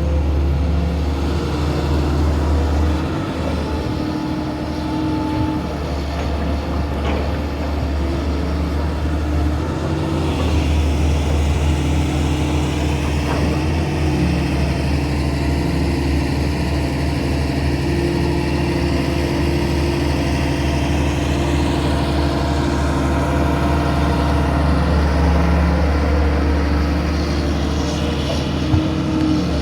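Excavator's diesel engine running steadily as it digs, with a low drone whose note shifts a little now and then as the hydraulics take load.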